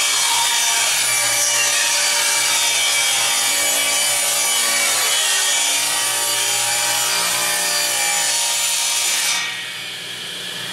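Table saw ripping a board lengthwise: a steady, loud cutting noise over the whine of the spinning blade. About nine seconds in the blade clears the board and the saw runs on free, quieter.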